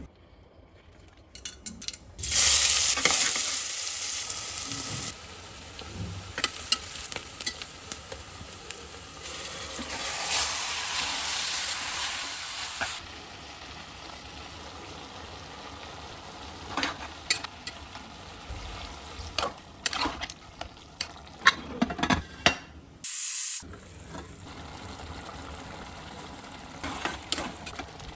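Mutton curry frying in hot oil in a pressure cooker pot, with loud stretches of sizzling a couple of seconds in and again around the middle. A ladle stirs the meat, scraping and knocking against the metal pot in short strokes.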